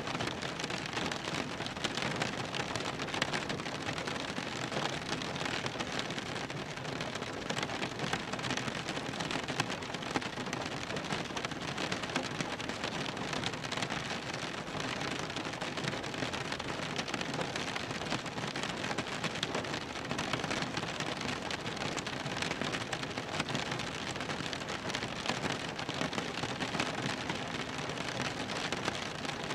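Steady rain drumming on a car's roof and windows, heard from inside the car: a dense, even patter of drops.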